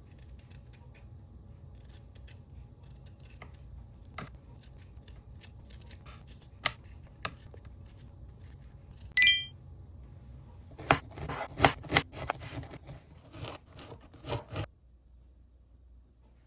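Small household handling sounds: scattered clicks and snips, one short high-pitched tone about nine seconds in, then a quick run of louder clicks and clatter before it goes quiet.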